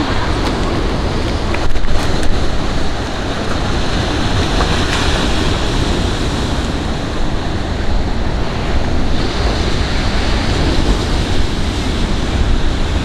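Sea waves washing onto a shingle beach, with a louder surge about two seconds in. Wind buffets the microphone with a low rumble.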